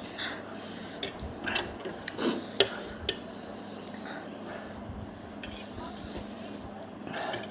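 Eating utensils clicking and scraping against dishware now and then while noodles are being eaten, with one sharper clink about two and a half seconds in.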